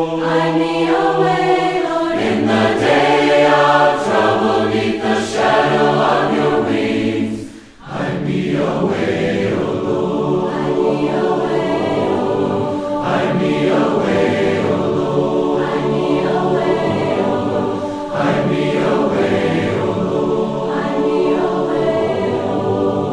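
A choir singing a sacred song, breaking off briefly about eight seconds in and then resuming.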